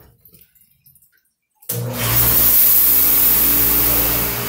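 Shop parts washer running, coming on suddenly about two seconds in: a loud, steady hiss of spraying water over an even motor hum.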